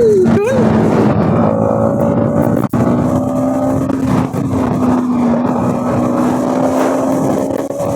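Bajaj Pulsar NS200's single-cylinder engine running at a steady cruising pace under a rider, with wind and road noise. The engine note holds almost level, with a brief dropout about three seconds in.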